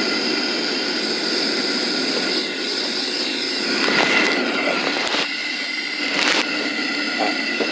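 Steady mechanical hum and hiss with several constant tones running through it, broken by two short bursts of noise about four and six seconds in.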